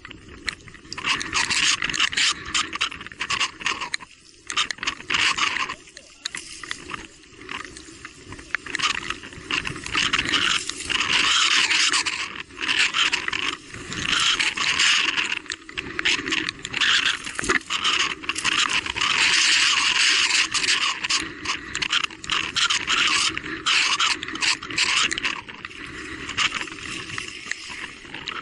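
Electric mountain bike being ridden over a rough, wet trail: tyres scraping and crunching on the ground with rattling noise that surges and dips every second or so.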